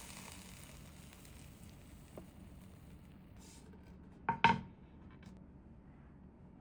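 Dishes or utensils being handled in a small kitchen: a faint click, then two sharp knocks in quick succession about four seconds in.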